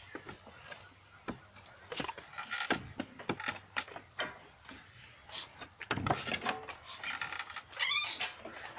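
Goat kids at a milk bottle and shuffling on a wooden slatted floor: scattered knocks and clatters on the boards, with snuffling, sucking noises. A short wavering squeak comes near the end.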